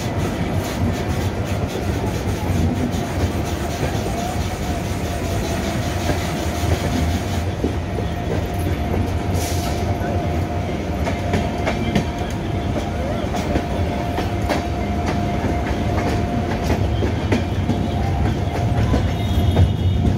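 Passenger train running on the rails, heard from an open coach doorway: a steady rumble with clickety-clack and a faint steady whine. Near the end it grows louder and heavier as the train runs onto a steel truss bridge.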